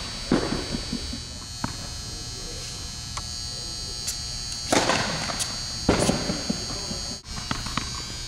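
Tennis balls struck with rackets and bouncing on an indoor hard court. There are several sharp hits, the loudest a serve about five seconds in with another strike about a second later, over a steady high-pitched whine.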